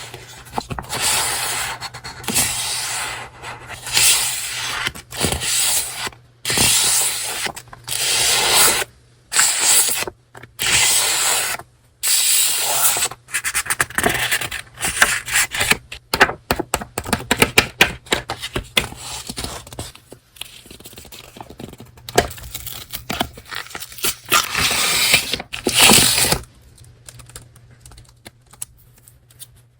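Paper stationery and packaging rustling and scraping as it is handled, in a run of strokes each up to about a second long, quieter for the last few seconds.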